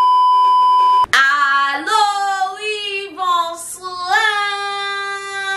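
A steady test-pattern beep lasts about a second and cuts off. Then a woman sings a melody alone, ending on a long held note.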